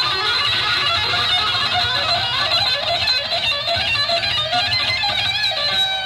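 Electric guitar solo played with two-handed tapping: very fast runs of high notes repeating in quick patterns.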